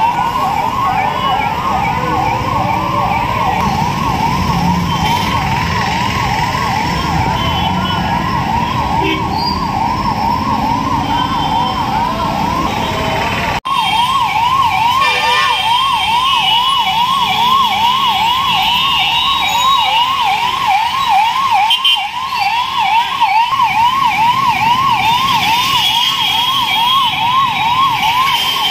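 Ambulance siren sounding a fast rising yelp, repeating about three times a second, over traffic rumble. It breaks off for an instant about halfway through.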